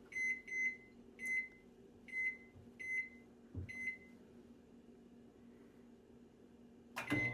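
Microwave oven keypad beeping as buttons are pressed to set the cook time: six short beeps at uneven intervals over the first four seconds. Near the end comes another beep and the oven starts running with a steady low hum.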